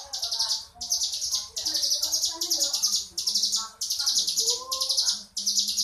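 Ciblek gunung, a mountain prinia, singing its ngebren song: long, rapid, buzzy high-pitched trills repeated almost without pause, broken by short gaps. Fainter, lower warbling notes sound underneath.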